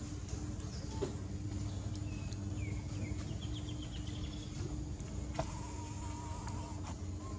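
Outdoor ambience of insects droning steadily over a low steady rumble. A few thin whistled calls come through: a falling whistle about two seconds in, a quick run of high notes just after it, and a wavering tone lasting over a second from about five and a half seconds.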